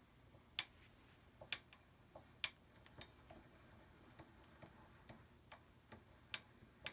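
Light, sharp metallic clicks from a hand-operated Goodell Pratt No. 8 bench drill press as its mechanism is turned by hand, about a dozen at uneven spacing over an otherwise quiet room, a few louder ones in the first half.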